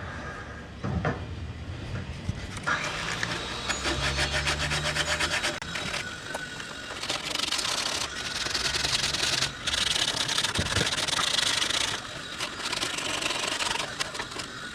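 Sanding a wooden carving: a rough, rasping rub of abrasive on wood that comes and goes, loudest in the second half.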